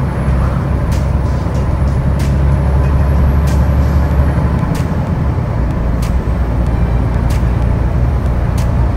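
Scania truck's diesel engine running steadily on the move, heard from inside the cab as a low drone over road noise; the low engine note eases about halfway through. Light clicks come about once a second.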